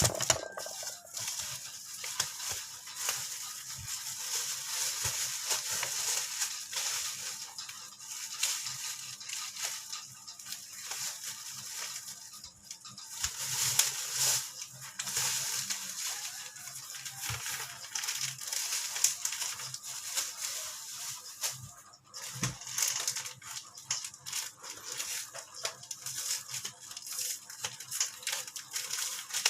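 Packaging being handled and opened: continuous crinkling and crackling of plastic wrap or paper, with brief tearing, full of small rapid clicks.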